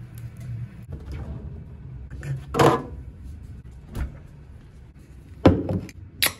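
Knocks and clunks of a drinks fridge being opened and a can handled, the loudest about two and a half seconds in; near the end an aluminium beer can's tab is cracked open with a short, sharp snap.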